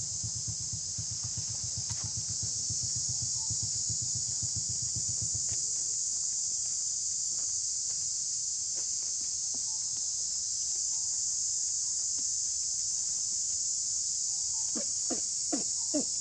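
Steady high-pitched chorus of insects. A low, rapid pulsing hum underneath stops about five seconds in. Near the end comes a quick run of four or five short sounds.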